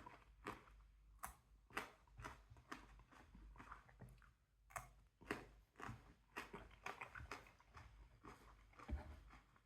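Faint chewing of a raw bird's eye chilli: soft, irregular crunches and wet mouth clicks, several a second at times.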